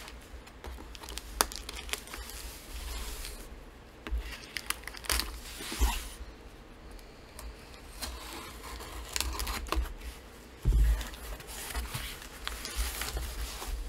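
Cardboard book mailer being handled and opened by hand: packing tape tearing loose and cardboard scraping and rustling, with scattered sharp clicks and a loud dull thump late on.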